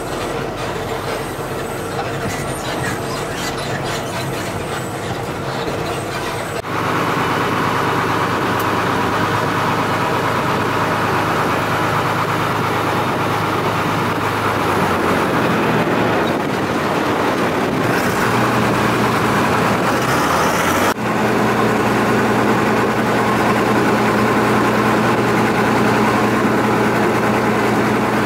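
Engine of a river tour boat running steadily under way, a loud drone mixed with rushing air and water noise. The tone changes abruptly about seven seconds in and again about twenty-one seconds in.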